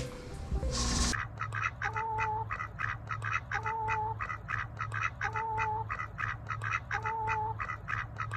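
Mallard ducks quacking: a fast run of short quacks with a longer, steadier call about every second and a half, repeating so evenly that it sounds looped. It starts suddenly about a second in.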